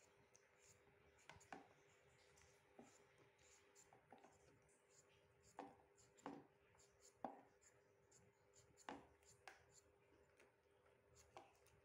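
Faint scrapes of a knife peeling and cutting a green papaya: about ten short, separate strokes at irregular intervals, over a faint steady hum.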